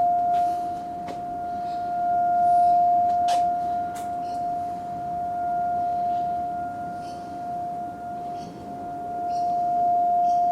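A steady, high-pitched tone coming from the sky, one unchanging pitch held throughout while its level slowly swells and fades; its source is unknown. Short high chirps of small birds sound over it now and then.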